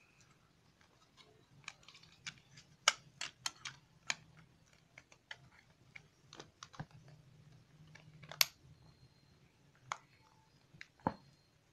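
Irregular sharp plastic clicks and taps as the battery cover of a toy RC monster truck is fitted over the battery pack and pressed into place on the chassis, the loudest clicks about three seconds in and about eight and a half seconds in.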